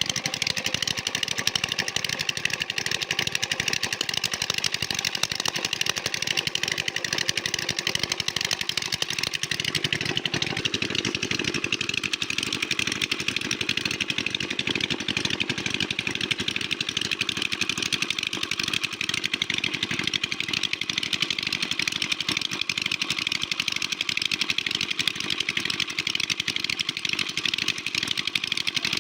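An engine running steadily, its tone shifting slightly about ten seconds in.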